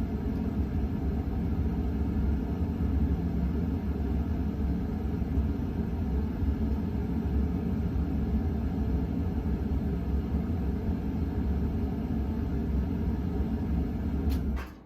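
KDK Royalaire ceiling fan coasting down after being switched off, heard as a steady low rumble. Near the end come a couple of clicks, and the rumble drops away suddenly.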